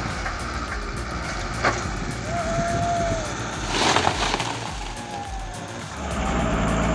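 Heavy machine engine running with a low rumble. A short high squeal comes about two seconds in, and a sharp crack about four seconds in.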